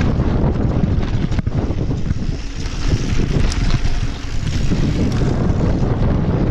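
Wind buffeting the action camera's microphone as a mountain bike rides down a dirt and gravel trail, with the tyres rolling over loose ground and the bike rattling; a sharp knock about one and a half seconds in.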